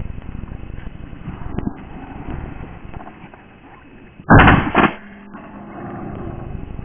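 A shotgun fired at a flushing partridge: one loud blast about four seconds in, lasting about half a second with a second sharp peak at its end, over a steady low rumble of wind and walking noise.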